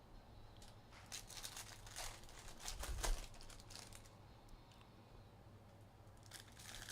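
Foil trading-card pack wrappers crinkling and tearing open as the cards are handled, heard as soft scattered crackles and rustles that are busiest about one to three seconds in and again near the end. A low steady hum sits underneath.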